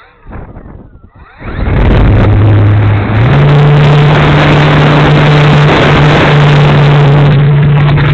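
Electric motor and propeller of an E-flite P-51 Mustang radio-control plane spooling up with a rising whine, then running loud and steady at high power, the pitch stepping up about three seconds in.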